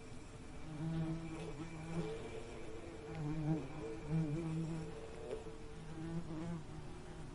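Bees buzzing, a low hum that swells and fades in spells of about a second, several times over, as bees fly close past.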